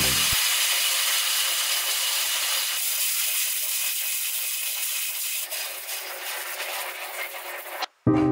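Band saw blade cutting lengthwise through a thick block of wood: a steady sawing noise that slowly fades and then cuts off abruptly near the end.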